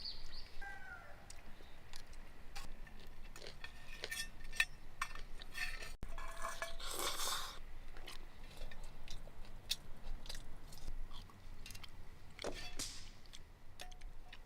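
A person chewing food, with many short clicks and light clinks of utensils against a bowl or pot.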